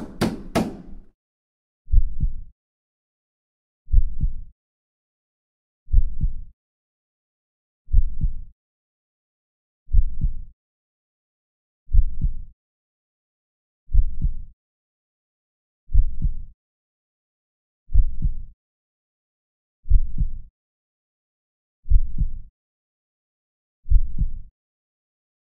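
Two sharp hits at the start, then a slow heartbeat sound effect: a deep double thump every two seconds, twelve beats in all.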